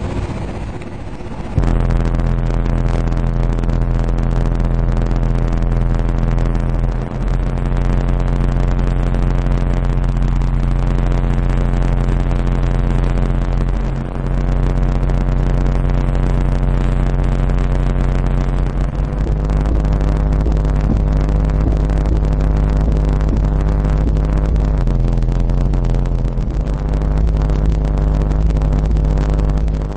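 Two Alpine Type-R 12-inch subwoofers in a ported enclosure tuned to 32 Hz, playing deep bass loud at high excursion. The bass comes in about a second and a half in as long held low notes that step to a new pitch a few times.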